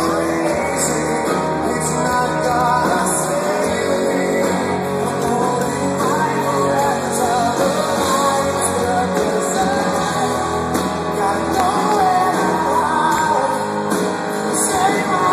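Rock band playing live: electric guitars, drums and a male lead vocal, heard from the crowd in a large hall.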